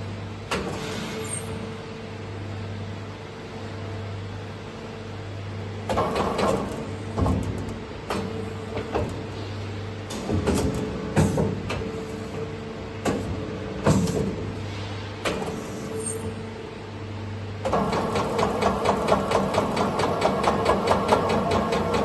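Dahlih MCV-1350 vertical machining center's arm-type automatic tool changer cycling over a steady machine hum, with a series of clunks and knocks as the arm swings and swaps tools. Near the end a fast, even clatter of clicks, several a second, sets in as the 24-tool magazine indexes round.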